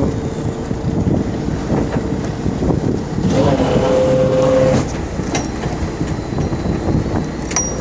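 Fishing boat's engine running, a steady low rumble mixed with wind and water noise. A short held tone rises over it for about a second and a half, about three and a half seconds in.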